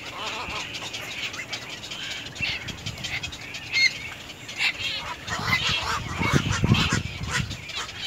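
Black-crowned night herons calling at the nest: a busy run of short, harsh calls and clicks, with louder low bumps in the second half.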